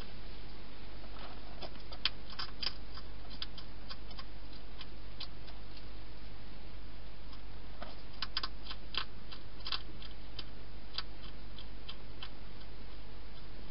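European hedgehog eating: crunching dry food as runs of sharp clicks, one cluster about two seconds in and a longer one around eight to ten seconds in, over a steady hiss and low hum.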